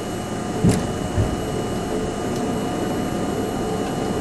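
Subway train running steadily through a tunnel with a continuous rumble. Two sharp knocks half a second apart come about a second in, as the wheels strike rail joints.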